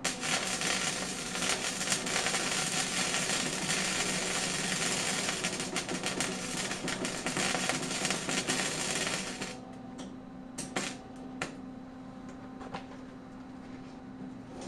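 Wire-feed MIG welder arc crackling steadily for about nine and a half seconds as a bead is run on a tube-frame gusset, then stopping. A few sharp clicks follow over a steady low hum.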